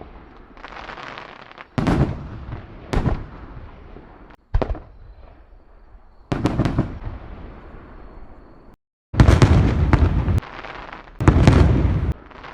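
Fireworks sound effect: a series of about six loud bangs, each fading into a hissing tail. The sound cuts out abruptly twice before starting again.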